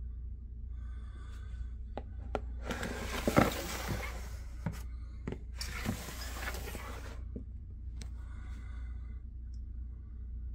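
Plastic tub sliding against a rack shelf: a few clicks and knocks, then two scraping slides of about a second and a half each, over a steady low hum.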